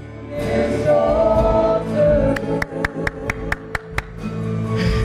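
Gospel worship music: voices singing over instrumental accompaniment, with a quick run of about eight sharp hits, roughly five a second, about halfway through.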